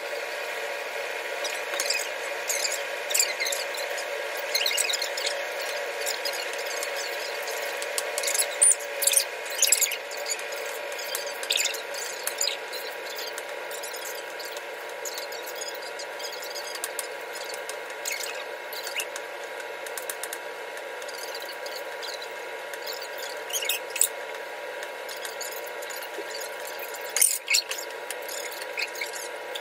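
Kitchen knife cutting an onion on a wooden cutting board: scattered, irregular sharp taps of the blade on the board, over a steady background hum.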